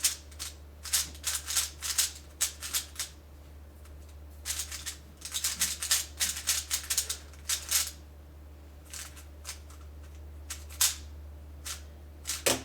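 Plastic 3x3 speedcube being turned by hand: runs of rapid clicking layer turns lasting a few seconds with short pauses between, growing sparser after about eight seconds.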